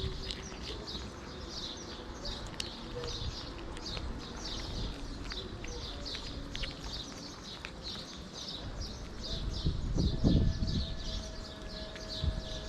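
Birds chirping: a steady run of short, high chirps, two or three a second, with a brief low rumble about ten seconds in.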